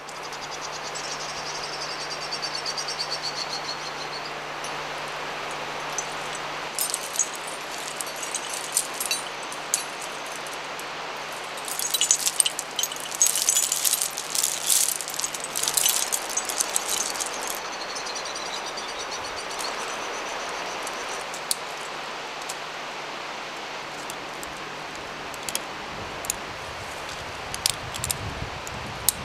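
Metal climbing gear jangling: carabiners, cams and nuts on an overloaded gear sling clinking together in bursts, loudest in the middle, over a steady outdoor hiss. A bird's quick falling trill sounds near the start.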